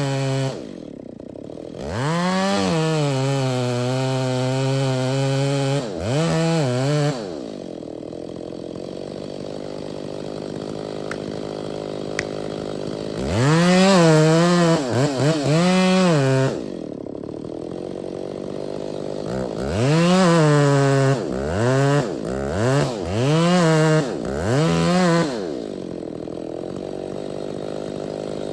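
Two-stroke chainsaw revved up in repeated bursts and dropping back to idle between them: one long burst a couple of seconds in, another in the middle, and a run of short blips near the end.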